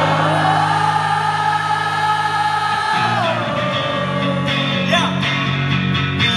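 Live rock band playing loudly through a venue PA, with electric bass and guitar under singing. A long held note slides down about three seconds in.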